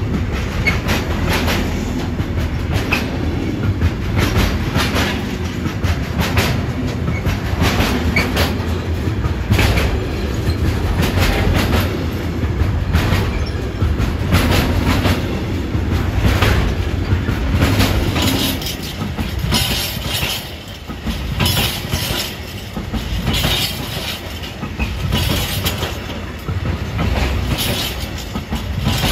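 Wagons of an intermodal freight train, pocket wagons with lorry semitrailers and tank containers, rolling past close by: a steady low rumble with irregular clacks of the wheels over rail joints and points. The sound eases somewhat about two-thirds through, then picks up again.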